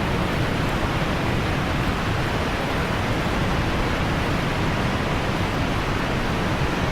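A steady, even rushing noise that keeps the same level throughout.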